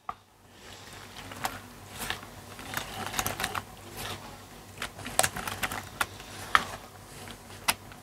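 A spoon stirring grated cucumber into thick yogurt in a plastic mixing bowl: wet scraping and irregular clicks of the spoon against the bowl, starting about half a second in.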